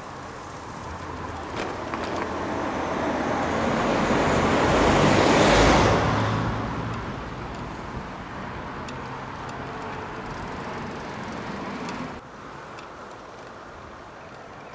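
A motor vehicle passes close by, its tyre and engine noise swelling to a peak about halfway through and then fading away. The steady background noise drops suddenly near the end.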